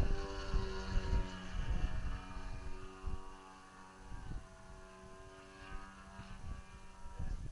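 Small remote-control airplane engine running steadily at high revs in flight, fading after about three seconds, with wind rumbling on the microphone.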